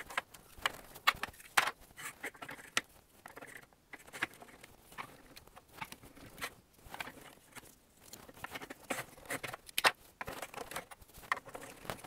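Hard-plastic Galt Marble Run track pieces and support cylinders being handled and clicked together, giving irregular sharp clicks and knocks, several a second.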